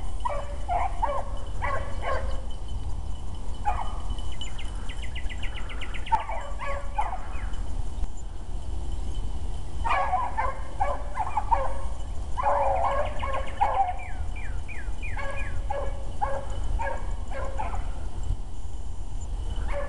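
A pack of beagle hounds baying on a rabbit's track, several voices overlapping in spells of a few seconds with short gaps between, the hounds close behind the rabbit.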